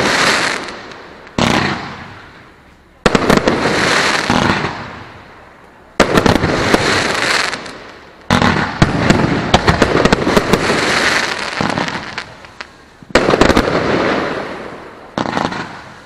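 Aerial fireworks shells bursting overhead one after another, about six times. Each starts with a sudden sharp bang and runs on as a few seconds of dense crackling that fades away before the next one.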